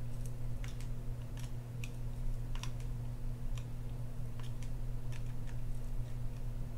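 Light, irregular clicks of a flathead screwdriver tip in a screw on the metal side plate of an Abu Garcia Ambassadeur 6500CL baitcasting reel, as the screw is snugged down a quarter turn. Underneath runs a steady low hum.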